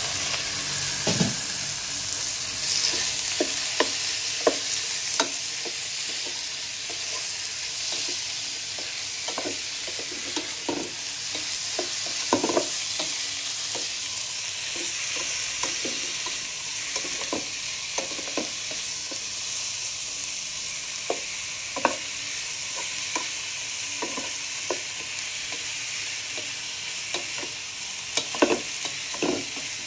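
Diced pork sizzling in hot oil with fried shallots and garlic in a non-stick wok, the steady sizzle starting loudly right at the start as the pork goes in. A wooden spatula stirs it, knocking and scraping against the pan at irregular moments.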